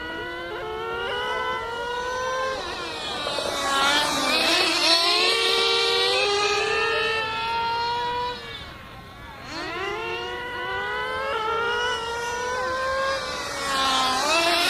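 Small high-revving nitro engines of radio-controlled cars running hard, their high-pitched whine climbing as they accelerate and falling off the throttle over and over. Two engines are heard at different pitches at times, and the sound dips briefly about nine seconds in before building again.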